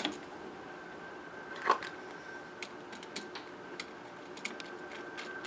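Small scattered clicks and taps of a wire and hand tool being worked onto a light switch's terminal screw, with one louder knock about a second and a half in, over a faint steady hum.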